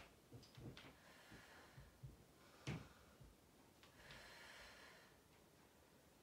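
Near silence with a person's faint breathing during exercise, a longer soft breath out about four seconds in, and a few faint clicks.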